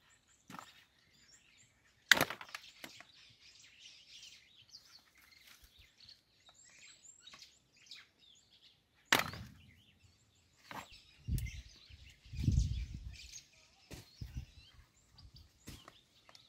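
Small birds chirping throughout, with two sharp clicks about 2 and 9 seconds in and a few low thumps near the end as a plastic HDPE compression fitting is twisted tight by hand.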